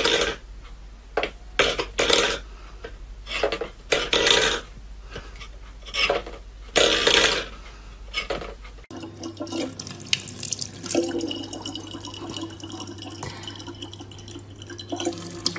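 A run of short, irregular clatters and scrapes, then a thin stream of tap water running steadily into a plastic bottle, with a low hum under it.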